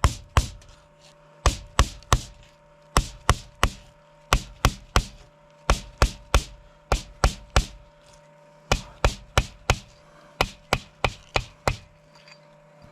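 Repeated hard chopping blows as a whole hog is split open, coming in runs of two to four strikes with short pauses between. A faint steady hum runs underneath.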